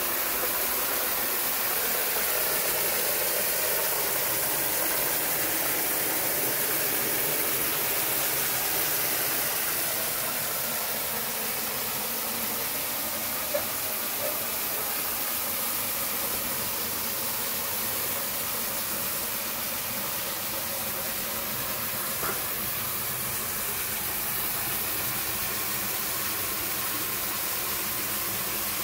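Strong jet of water from an open tap splashing steadily into a full metal basin, a constant rushing hiss.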